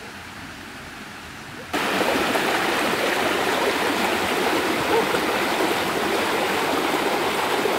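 A shallow rocky stream rushing and burbling over stones, cutting in suddenly about two seconds in; before that, only a quieter steady hiss.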